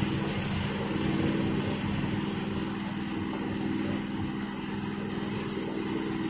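Two passenger trains running side by side on parallel tracks: a steady rumble of steel wheels on rail and rushing air through an open coach doorway, with a constant low hum underneath.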